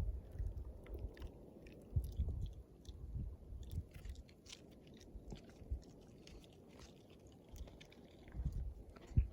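Light wind buffeting the microphone in uneven low puffs, with faint scattered crackles and ticks. A short thump comes just before the end.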